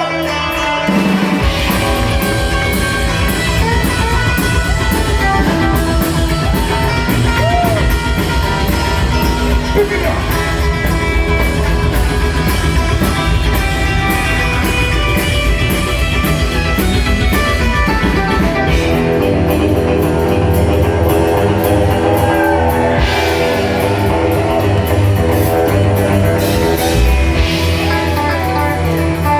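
Live rockabilly band playing: guitar over drums, with the bass and drums coming in about a second in.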